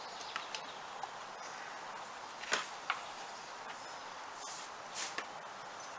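Light clicks and knocks of hands working a serpentine belt onto the engine's pulleys, a few scattered taps with the sharpest two about two and a half and three seconds in, over a steady background hiss.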